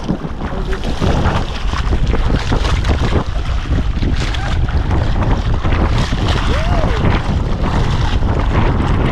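Sea water splashing and sloshing around a swimmer at the surface, with wind rumbling on the microphone.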